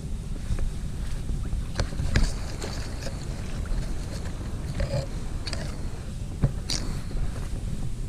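Wind buffeting an action camera's microphone, a steady low rumble, with scattered short rustles and clicks from movement on an inflatable air mattress floating on water.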